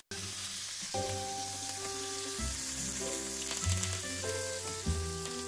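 Steak sizzling in butter in a frying pan as it is basted, with background music of slow held notes coming in about a second in.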